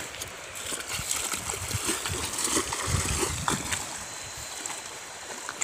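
Water splashing and sloshing around legs wading through a shallow river, in irregular bursts that are busiest in the middle, over the river's running water.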